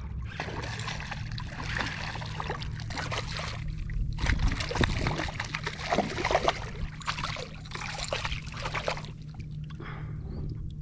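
Water splashing and trickling at a kayak's side, with irregular knocks and rattles as a freshly caught redfish is handled, loudest in the middle.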